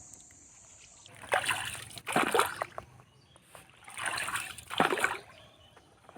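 Oars of a rowed river boat dipping and splashing in the water, four strokes with pauses between them, after a faint steady insect buzz in the first second.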